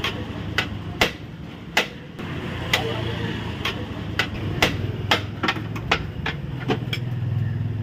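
Repeated sharp knocks at irregular intervals, about two a second, over a steady low hum.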